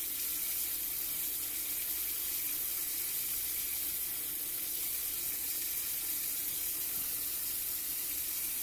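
Kitchen faucet running steadily into a metal sink, the stream splashing over raw chicken gizzards being rinsed by hand under it.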